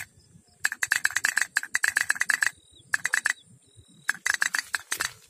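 Toy pop-pop (otok-otok) steam boat ticking, its boiler diaphragm clicking about ten times a second in three runs separated by short pauses.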